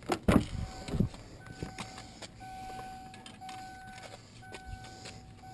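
A car door opening with a few knocks and clunks, then the car's warning chime beeping on and off in a steady repeating tone while the door stands open.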